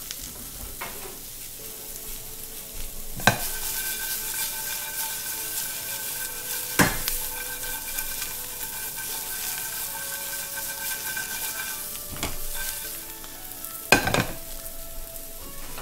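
Brussels sprouts and bacon sizzling in a frying pan, a steady hiss, with a few sharp clanks of a utensil against the pan as they are tossed.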